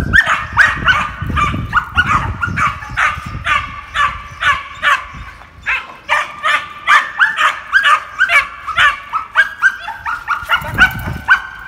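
A two-and-a-half-month-old puppy yapping and barking in quick high-pitched calls, about three a second, worked up by tug and bite play on a rag, with a short lull about halfway through.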